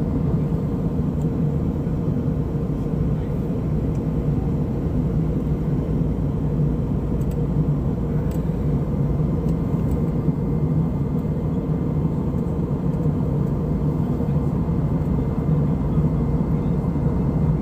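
Airliner cabin noise in cruise flight: a steady low rumble of the engines and airflow, with a faint steady hum over it.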